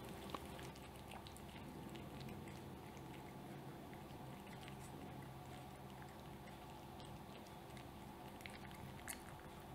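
Cat chewing and licking soft scrambled egg from a metal plate: faint wet mouth sounds with many small clicks, a few sharper ticks near the end.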